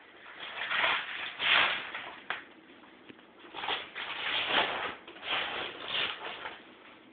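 Paper rustling and crinkling in irregular bursts as a gift is handled.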